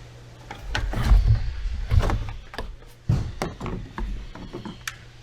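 Plastic clicks, knocks and clunks of engine-bay parts being handled, likely the air box being worked loose, with the heaviest clunks about one, two and three seconds in.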